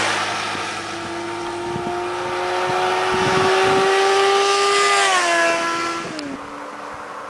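Yamaha XJ6 motorcycle's inline-four engine at high speed, its note climbing steadily as it approaches, then dropping in pitch and fading as it passes about five seconds in.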